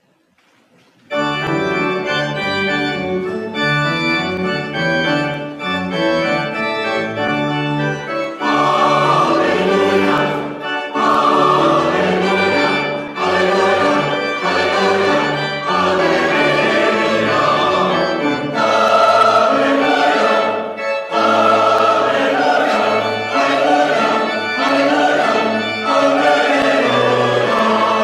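Church organ starts playing held chords about a second in, and singing voices join at about eight seconds, with organ and voices together after that.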